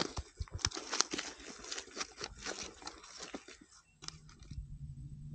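A dense run of irregular taps, slaps and rustles that stops a little before four seconds in; about four seconds in a low steady hum takes over.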